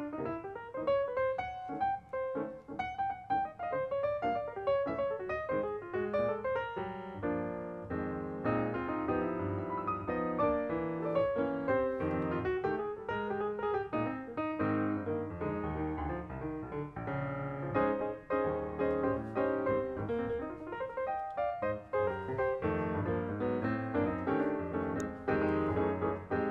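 Background piano music, a steady flow of notes with no pause.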